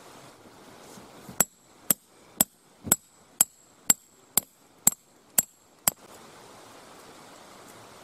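A tent peg being hammered into gravelly ground: ten sharp, evenly spaced strikes, about two a second, each with a short high ring.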